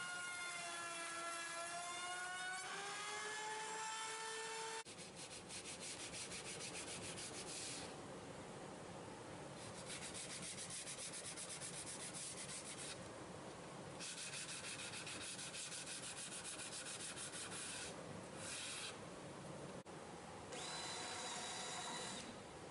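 A router's motor runs while a board edge is fed past the bit, its pitch dipping and then recovering under the load. After a cut, a sanding block rubs back and forth along the wooden edge in three runs of quick strokes with short pauses. Near the end a cordless drill starts with a steady high whine.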